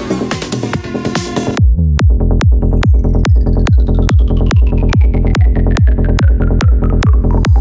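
Trance dance music in a DJ mix with a steady four-on-the-floor kick drum and bass. About one and a half seconds in, the full mix drops away to just kick and bass, with a slowly falling synth sweep over it.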